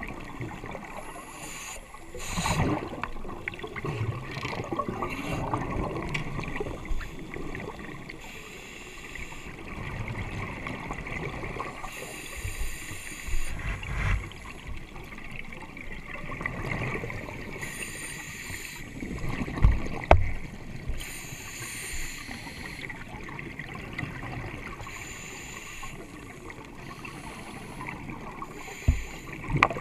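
Scuba regulator bubbles heard underwater through a GoPro's waterproof housing: exhaled bubbles gurgle out in bursts every few seconds over a muffled wash of water. A few sharp knocks on the housing stand out, the loudest twice about twenty seconds in and once near the end.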